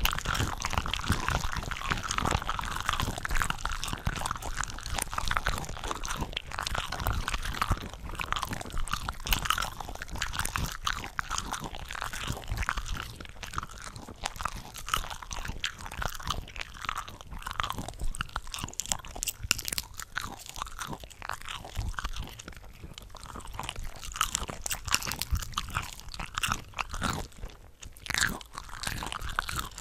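Chewing and biting of cooked shrimp, several eating tracks layered over one another into a dense, continuous run of small clicks and crackles, easing briefly near the end.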